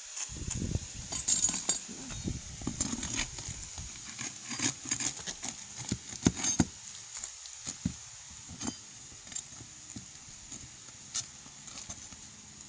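Metal pry tool working under asphalt shingles to pop out roofing nails: irregular knocks, taps and metallic clinks, with a low rumble in the first few seconds.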